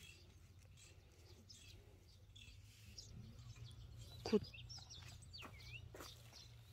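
Faint bird chirps in open farmland, with short high chirping calls after about four seconds, over a low steady hum. There is one brief louder sound about four seconds in.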